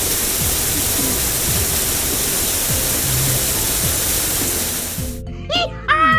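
Cartoon sound effect of a shower head spraying rinse water: a steady hiss that cuts off about five seconds in, over light background music. A short gliding cartoon tone follows near the end.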